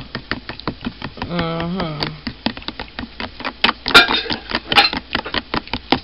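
A metal utensil beating eggs in a glass dish: rapid, uneven clicking of metal against glass, with a louder flurry of strokes about four seconds in.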